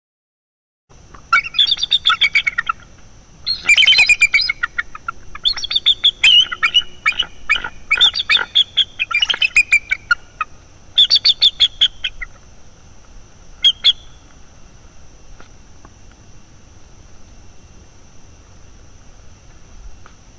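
Bald eagles giving rapid, high chittering calls in several bouts, starting about a second in and running to about twelve seconds, with one short call a little later. These are the pair's alert calls at an intruding young eagle near the nest.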